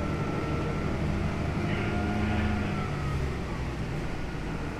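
Inside a 2011 New Flyer DE60LFR hybrid articulated bus on the move: its Cummins ISL9 diesel and Allison EP50 hybrid drive running with a low rumble and a thin steady whine, swelling a little about two seconds in and easing after about three seconds.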